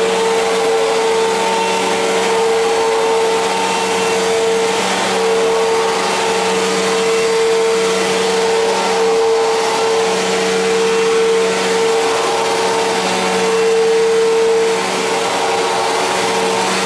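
1999 Fantom Fury bagless upright vacuum cleaner running steadily: a strong steady whine with a lower hum beneath and a rush of air. The odd noise its owner cannot diagnose is not pronounced here, only slight wavers in the whine now and then.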